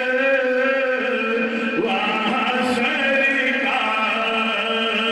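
A man reciting a naat, singing long held melodic notes into a handheld microphone. The pitch steps to a new note about a second in, again near two seconds, and once more near four.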